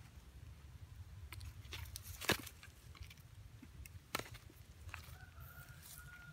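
Faint clicks and light knocks as a plastic basket and bamboo trap sticks are handled on dry, leaf-covered ground, over a low steady hum. A thin, held tone comes in near the end.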